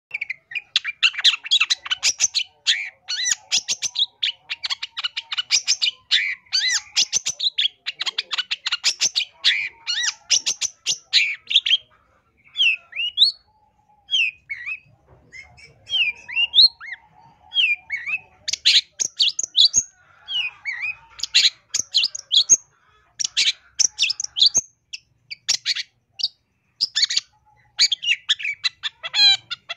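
Long-tailed shrike (cendet) singing a varied song full of phrases mimicked from other birds. It opens with a long, fast chatter of notes, moves on to separate rising and falling whistles about twelve seconds in, and returns to quick chattering bursts.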